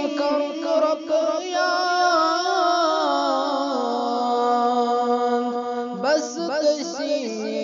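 A man's voice singing a devotional Islamic nasheed in a drawn-out, ornamented melodic line without words. He holds one long wavering note for several seconds, then breaks off about six seconds in into a new ornamented phrase.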